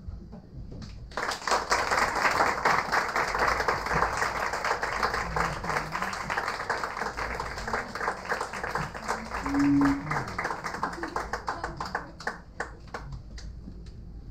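Audience applauding in a small room: clapping starts about a second in, holds steadily, then thins out to a few last claps near the end. A brief voiced call rises out of the clapping about two-thirds through.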